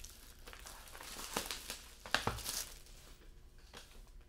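Plastic shrink-wrap being torn and peeled off a trading-card hobby box, in several bursts of crinkling with a sharp crackle about two seconds in.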